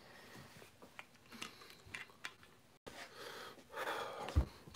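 Faint handling noise with scattered small clicks, then a breathy rush of noise and a low thump near the end.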